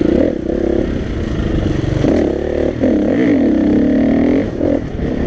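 On-board sound of a KTM 350 EXC-F's single-cylinder four-stroke engine, heard from the rider's helmet. Its revs rise and fall again and again under throttle on a dirt trail.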